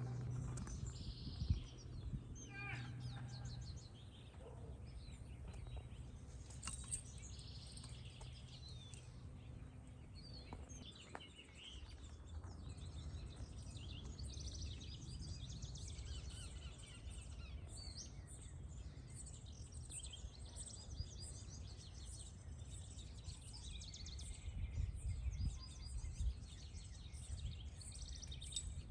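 Small birds chirping and trilling over and over, over a steady low rumble.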